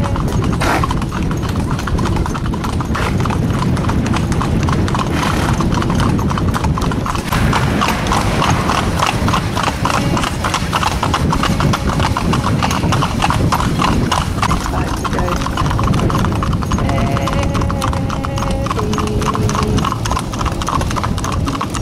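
Hooves of a four-in-hand team of spotted ponies clip-clopping on a tarmac road at a trot, a dense, steady run of overlapping hoofbeats.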